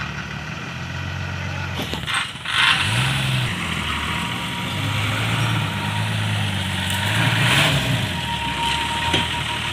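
Heavy diesel truck engine running as the truck pulls slowly forward, the engine note rising as it revs about three seconds in and again near the end.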